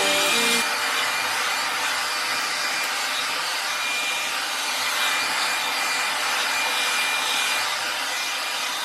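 Hand-held hair dryer blowing steadily: an even rushing of air with a faint high whine from the motor. Background music cuts out just after the start.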